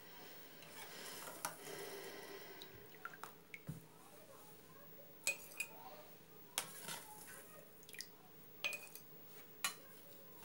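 Metal spoon clinking against a metal pot and a glass jar while liquid is spooned out: about nine sharp clinks spread over several seconds, some with a brief metallic ring, the loudest about halfway through and near the end. Soft handling noise comes first, as plums are pressed into the jar.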